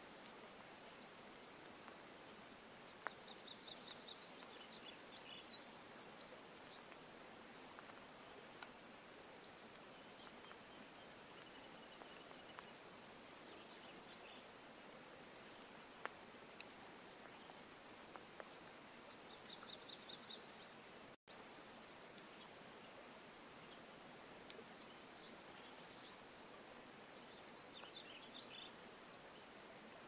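Faint light rain falling on still pond water, with a steady soft hiss and an occasional single drip plink. Small birds sing in the background, with runs of quick, high repeated notes and a few short trills.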